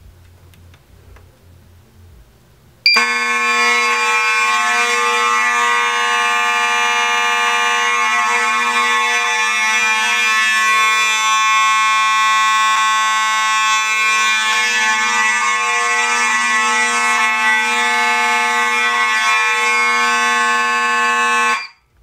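Simplex fire alarm horns sounding together on a continuous signal, a loud steady blare of several pitches at once. It starts about three seconds in and cuts off suddenly near the end.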